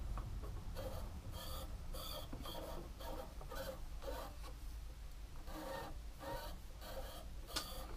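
Faint rubbing strokes repeated about two or three times a second, over a low steady hum.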